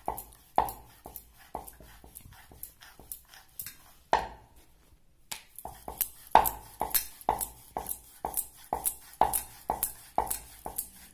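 Rolling pin knocking and clacking on a round rolling board as a round of dough is rolled out thin. The knocks come in a quick, even rhythm of about three a second, with a short pause about halfway through.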